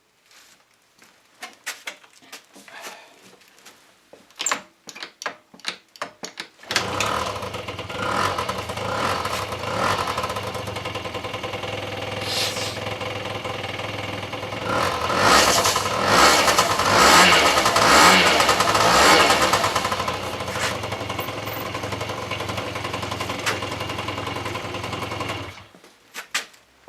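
Honda Dio AF27 scooter's freshly rebuilt 50cc two-stroke engine: a few clicks and knocks, then it starts about six and a half seconds in and runs, revving up in the middle, before the sound cuts off sharply near the end.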